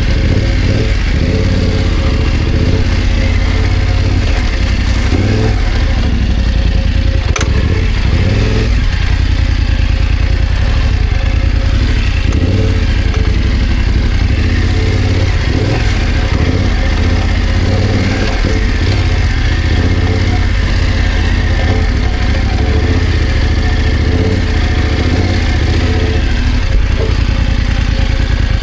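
BMW F900GS motorcycle's parallel-twin engine running steadily as the bike is ridden off-road, with a single sharp knock about seven seconds in.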